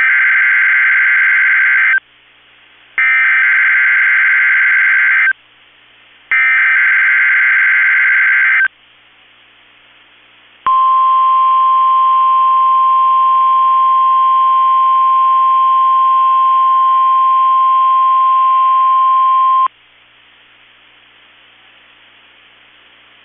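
NOAA Weather Radio alert test: three bursts of SAME digital header data, each about two seconds with short gaps, then the steady 1050 Hz warning alarm tone for about nine seconds. It cuts off suddenly to faint receiver hiss.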